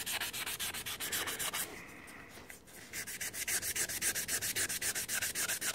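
Dry P800 wet-and-dry abrasive paper rubbed by hand over a metal brake caliper piston in quick, even strokes, about six or seven a second, to dress off sharp edges around its corrosion grooves. The strokes pause for about a second near the middle, then resume.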